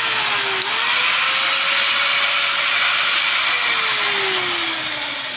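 DCA angle grinder running at full speed after its armature was cleaned of rust, which had stopped it turning. Its pitch dips briefly about half a second in, then from about three and a half seconds it drops steadily as the motor spins down.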